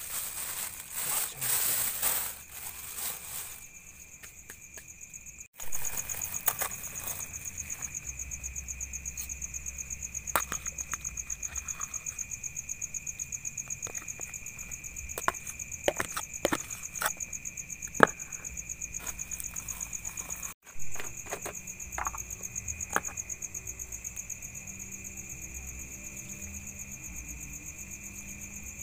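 Crickets chirping in a steady, fast-pulsing high trill. A plastic bag rustles as it is tied in the first few seconds, and sharp clicks and knocks from handling a bowl and spoon come now and then.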